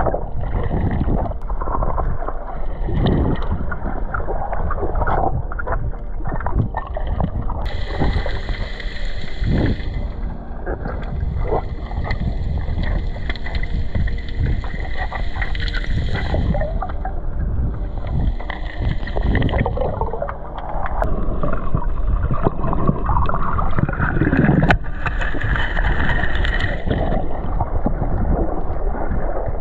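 Muffled underwater rushing and gurgling picked up by a submerged camera as a spearfisherman swims over a reef, with small knocks and bubbling throughout. A higher whine comes and goes several times, and one tone rises slowly about two-thirds of the way through.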